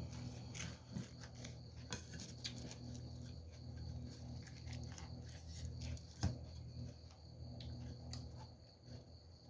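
Mouth-eating sounds: chewing and crunching crisp raw vegetables, with scattered sharp crunches and clicks, one louder about six seconds in.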